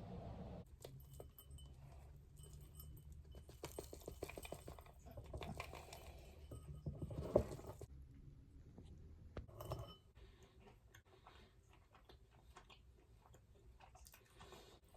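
Light clicks, rustling and clatter of small objects being handled, with one sharp knock about seven seconds in. A steady hum cuts off just under a second in.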